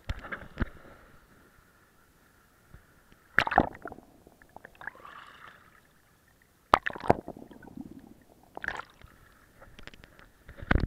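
Seawater splashing and gurgling over a waterproof action camera as it plunges under the surface and comes back out, in several sudden loud splashes a few seconds apart.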